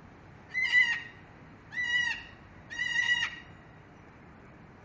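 A parrot calling three times, each call about half a second long and level in pitch.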